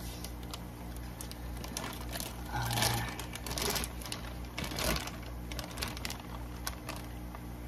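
Thick plastic fish shipping bag crinkling and crackling as hands stretch and tear it open, with louder rustling flurries about three and five seconds in, over a steady low hum.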